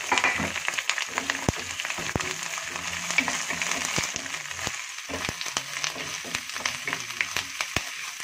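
Chopped onion, curry leaves and green chilli sizzling in hot oil in a nonstick frying pan. A wooden spatula stirring them gives frequent short clicks and taps against the pan.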